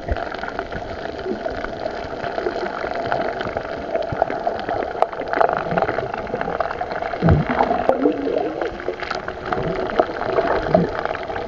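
Muffled underwater gurgling and water movement picked up by a camera in a waterproof housing, with scattered small clicks and a faint rising tone about seven seconds in.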